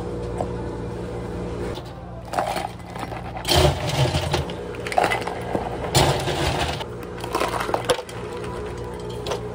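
Ice cubes scooped and dropped into plastic bubble-tea cups, clattering in several loud bursts from about two seconds in. Before that, a steady machine hum.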